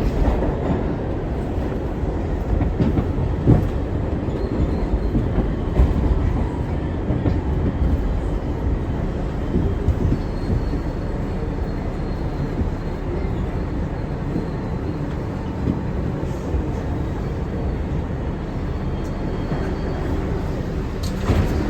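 R62 subway train running along the track: a steady low rumble with a few sharp clacks in the first half and a faint high squeal from the wheels later on.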